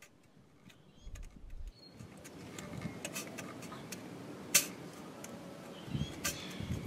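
Scattered light metallic clicks and taps as a diesel fuel pump is worked off its mounting studs, its copper shims shifting against the aluminium housing. The sharpest click comes about halfway through.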